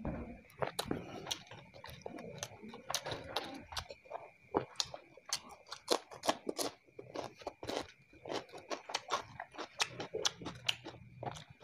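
Close-miked chewing of red terasi fried rice, eaten by hand, with many sharp, irregular crunches and mouth clicks. A faint steady high tone hums underneath.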